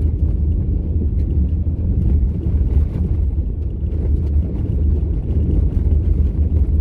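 Car driving along a gravel road: a steady low rumble of tyres and engine, with faint scattered ticks.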